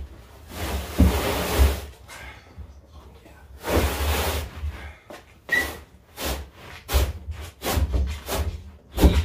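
Old fabric being pulled and torn away from a car headliner board: two long tearing pulls, then a run of short knocks and rustles as the board and cloth are handled.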